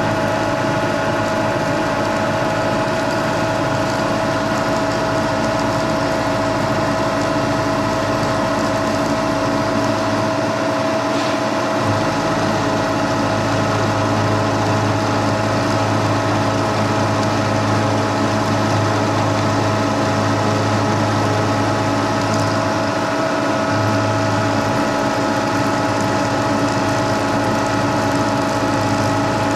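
Vintage milling machine running steadily with an end mill roughing out a pocket in a metal block: a steady machine hum with several fixed tones. The low part of the hum grows stronger about twelve seconds in and eases again near the end.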